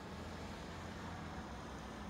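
Steady low rumble with an even hiss, with nothing standing out.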